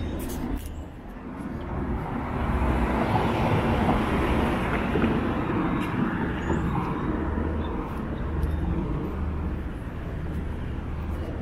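Street traffic: a vehicle passing on the road, its noise swelling about two seconds in and easing off over the next several seconds, over a steady low city rumble.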